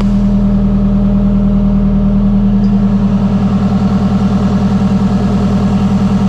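Turbocharged Subaru Justy (a rebadged Suzuki Swift) engine idling steadily at about 1200 rpm while still cold, freshly restarted after a head-gasket repair, heard from inside the car. Its exhaust pulses give an even rhythmic throb.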